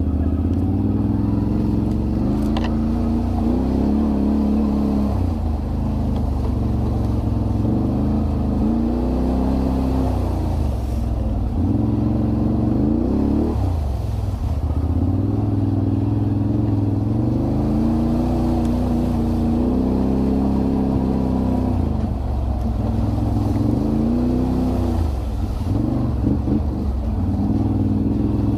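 ATV engines running, their pitch rising and falling again and again as the throttle is worked on rough ground, over a steady low rumble.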